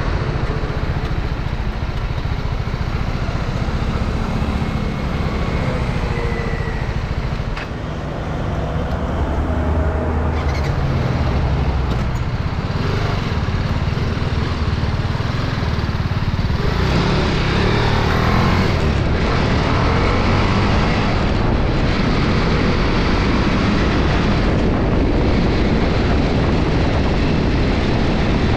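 TVS Apache RR310's single-cylinder engine running as the bike is ridden, with wind rush on the bike-mounted camera. The sound dips briefly about eight seconds in and grows louder from about halfway through as the bike picks up speed.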